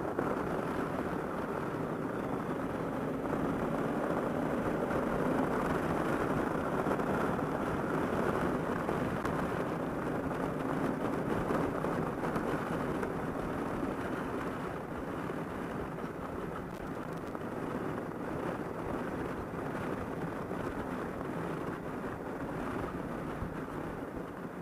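Honda Africa Twin CRF1000L motorcycle on the move: a steady rush of wind and road noise with the parallel-twin engine running underneath, growing gradually quieter over the last several seconds.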